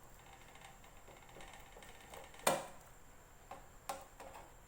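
Light clicks and knocks of metal parts and a tool being handled while an impulse bag sealer is being bolted back together, with one sharp knock about halfway through and a few lighter ones near the end.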